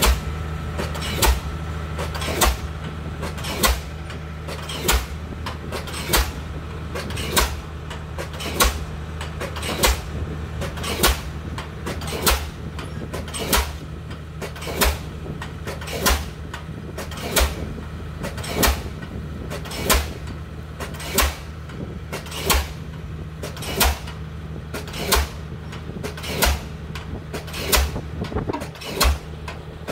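Diesel pile hammer driving a pile: regular sharp bangs, about one every 1.2 seconds, over a steady low drone.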